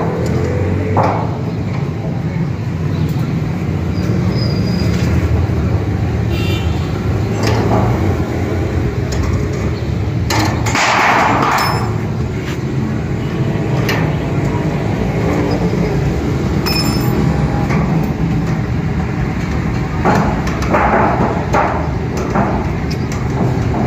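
Metal clicks and short scrapes of a hand tool on the dish's steel feed-support rods and mounting ring as the bolts are tightened, with a louder scrape about halfway through and another near the end, over a steady low rumble.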